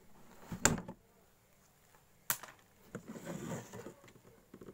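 Plastic pipes and corrugated hose being handled inside a plastic tub: a sharp knock about two-thirds of a second in, another a little past two seconds, then a spell of clattering and rustling.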